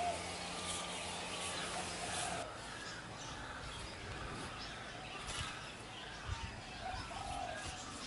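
Doves cooing in short rising-and-falling calls, with smaller birds chirping. A faint low hum cuts off about two and a half seconds in.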